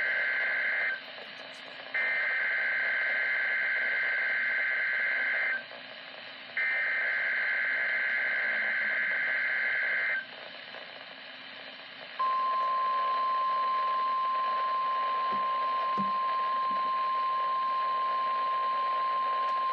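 NOAA Weather Radio Emergency Alert System Required Weekly Test heard through a weather radio's speaker: the tail of one SAME header data burst and then two more, each a few seconds of shrill two-pitch warbling, followed about twelve seconds in by the steady single-pitched warning alarm tone.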